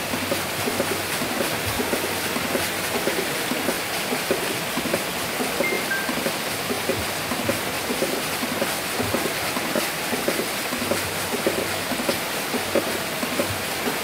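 Steady rushing of water from a small waterfall and rocky stream, with music playing alongside.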